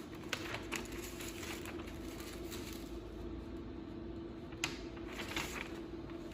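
Sheets of test paper rustling as they are laid between the welder's horn and lower mold, with light clicks and one sharp click about four and a half seconds in, over a steady low hum.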